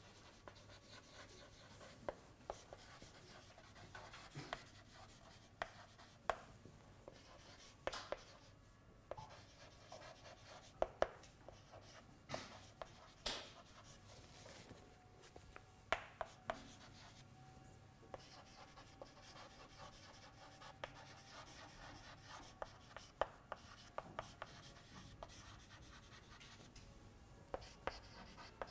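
Chalk writing on a blackboard: irregular sharp taps and short scratchy strokes as letters are written, faint over a low room hiss.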